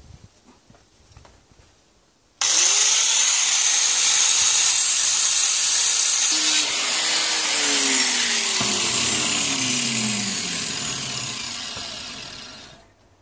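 Homemade rice flour grinder, a washing-machine motor spinning a chopping blade, switched on about two seconds in: it comes up to speed at once with a loud steady whir over a dense hiss of grinding. After several seconds it is switched off and winds down, its pitch falling and the sound fading out near the end.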